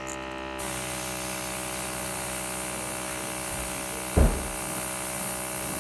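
Airbrush hissing as blue paint is sprayed onto a crankbait, starting about half a second in, over the steady hum of a small motor. A brief low knock about four seconds in.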